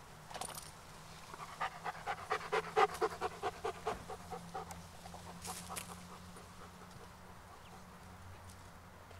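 A dog panting in a quick, even rhythm of about four or five pants a second for around three seconds, followed by a couple of short clicks.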